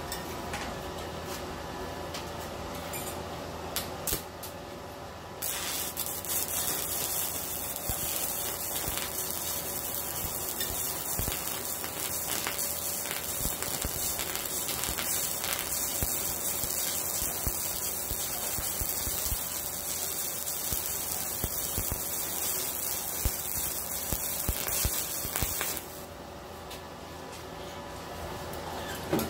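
Stick-welding arc of a 7018 3/32" electrode at 85 amps from a Yeswelder MIG-205DS inverter: a steady crackling hiss with frequent pops, starting about five seconds in after a few clicks and stopping about four seconds before the end. Slag from an earlier 6013 bead is running into the puddle.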